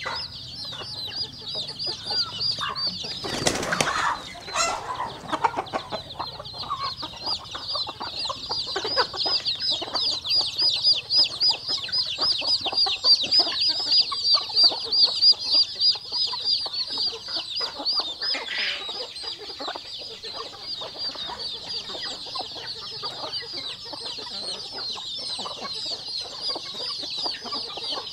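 A crowd of chicks peeping continuously in a dense, high-pitched chorus, with hens clucking underneath. A brief burst of wing flapping comes about four seconds in.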